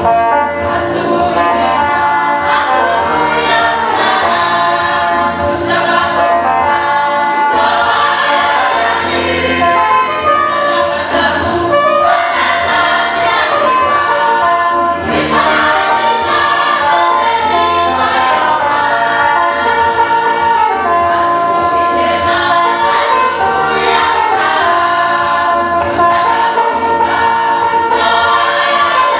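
Church choir singing a gospel song, the voices amplified through microphones.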